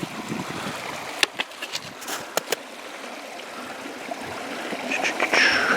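Water running in a small stream, with several sharp clicks and knocks scattered through it.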